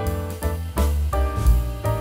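Background jazz music with piano, chords changing about every half second over a steady bass.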